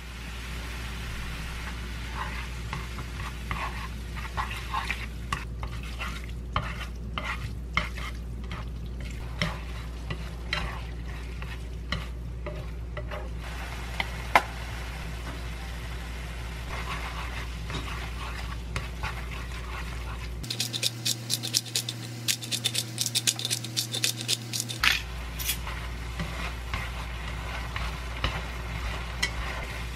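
Noodles and vegetables sizzling in a nonstick frying pan as they are stirred, with frequent clicks and taps of utensils against the pan and a denser spell of sizzling and clatter about two-thirds of the way through. A steady low hum runs underneath.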